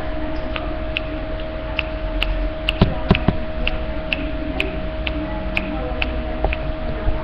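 Regular ticking, about two to three ticks a second, over a steady hum.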